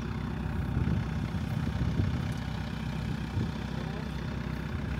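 A vehicle engine idling: a steady low rumble, with faint voices near the end.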